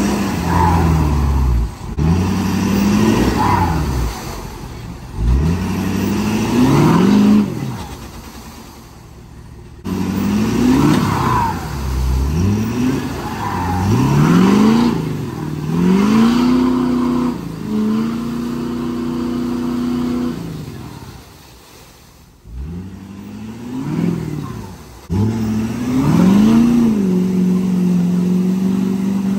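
Lifted Ford F-450's diesel engine revving hard again and again, its pitch climbing and dropping with each stab of throttle and held steady in a few places, while its 53-inch tires spin through creek mud and water, throwing up spray.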